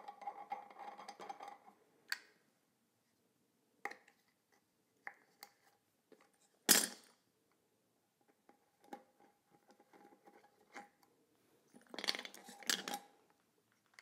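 Brass tap headgear and chrome tap parts being handled and screwed back together: light metallic clicks and scraping, with one sharp knock about seven seconds in and a short burst of rubbing and clicking near the end.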